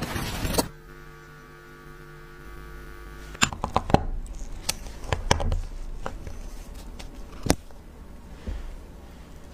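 A steady electrical hum, then a run of sharp small metallic clicks and taps from about three and a half seconds in, the loudest about seven and a half seconds in, as a hand tool works at a steel wristwatch's strap lugs to free the strap.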